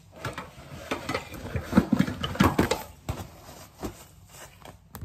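Dishes and cutlery clattering as they are handled: a quick run of knocks and clicks, busiest in the second and third seconds.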